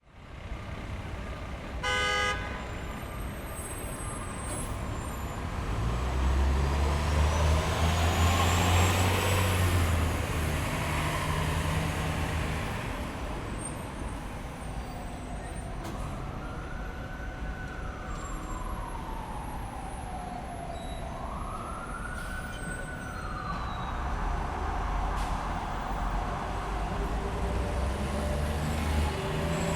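City street traffic ambience: steady traffic noise with a short car horn toot about two seconds in, a heavy vehicle's engine swelling as it passes, and an emergency siren slowly wailing up and down twice past the middle.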